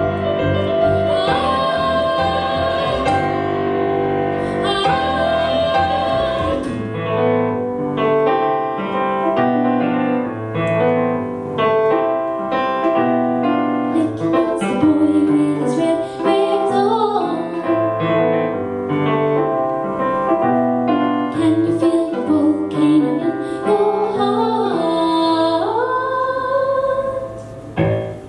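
Live folk song: a woman singing over keyboard and violin. Near the end the voice rises to a long held note and the song closes.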